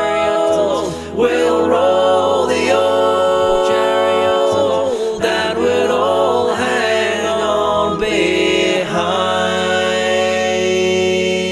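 A cappella sea shanty sung by several layered voices in harmony, on long drawn-out notes; about nine seconds in they settle on one steady held chord.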